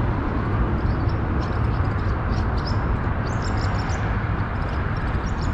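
Steady rumble of highway traffic, with small birds chirping now and then.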